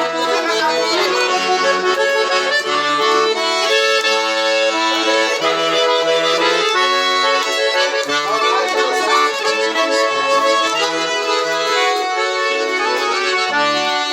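Accordions playing a forró melody in an instrumental passage, with full chords over a stepping bass line.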